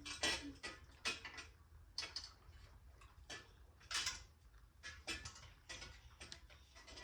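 Irregular clicks and light metallic knocks of bicycle parts and hand tools being handled while fitting and securing a mudguard, about a dozen sharp taps at uneven spacing.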